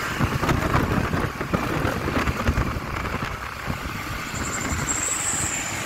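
Road traffic noise from a light truck running on the road, heard from a moving camera with wind buffeting the microphone.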